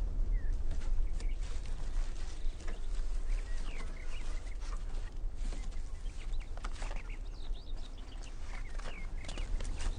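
Farmyard chickens clucking, with short bird chirps scattered through and a steady low hum underneath.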